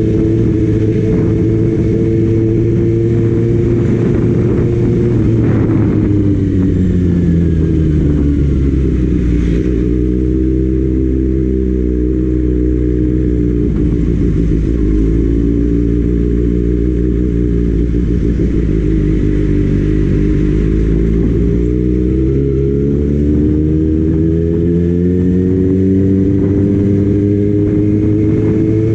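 Kawasaki Ninja ZX-6R's inline-four engine running under way, with heavy wind noise on the microphone. The engine pitch falls about five seconds in as the bike slows, stays lower for a while, then climbs again over the last several seconds as it accelerates.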